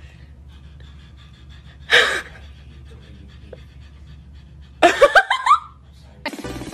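Tabby kitten vocalizing: a short breathy huff, then a quick run of about six rising chirps.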